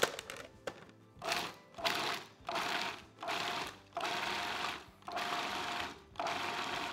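Food processor pulsed in about seven short bursts of motor whir, each under a second, chopping salmon with onions and capers coarsely so that some chunks remain.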